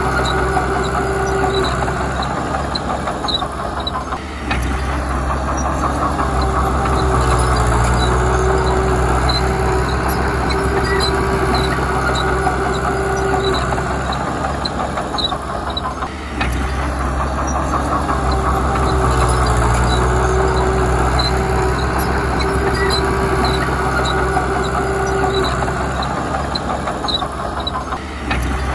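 Heavy diesel engine of earthmoving machinery running steadily under load. Its note dips briefly three times, about twelve seconds apart, with faint high clicks throughout.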